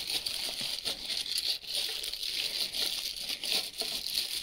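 Clear plastic wrapping crinkling and rustling as a stainless steel camping cup is handled and pulled out of it.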